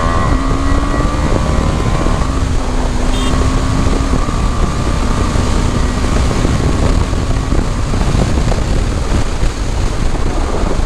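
Motorcycle engine pulling hard at highway speed under heavy wind rush on the microphone. The engine note climbs slightly over the first few seconds, then sinks under the wind noise for the last few seconds.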